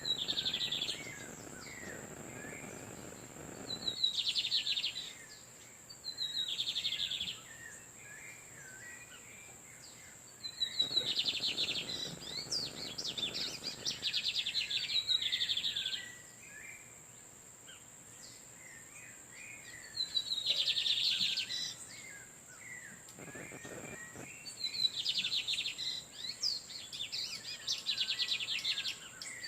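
Lined seedeater males singing back and forth: repeated phrases of fast, buzzy trills every few seconds, with softer chirps between them. A steady high-pitched tone sits underneath.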